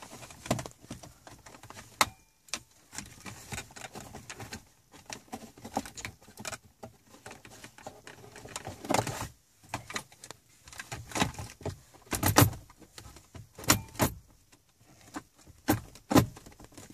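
Audi Q7 center-console plastic trim and MMI control panel being handled and pressed into place: irregular clicks, rattles and knocks, with a few louder snaps in the second half as the pieces seat.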